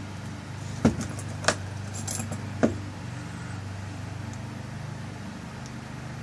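Small metal clicks of a lock cylinder's tailpiece being fitted and screwed onto the back of the cylinder: three sharp clicks in the first three seconds. A steady low hum runs underneath.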